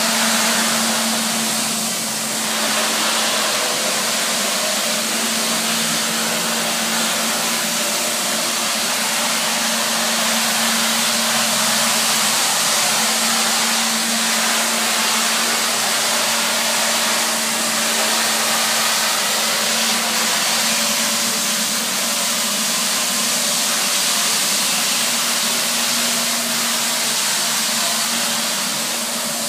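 Nilfisk BA531D walk-behind scrubber dryer running while scrubbing a wet concrete floor: a loud, steady hiss with a low hum under it.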